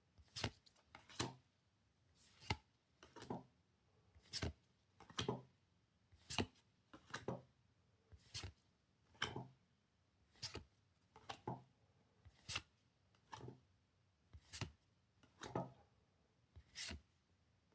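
Pokémon trading cards being flipped and laid down one at a time: a faint, sharp card snap about once a second, now and then two in quick succession.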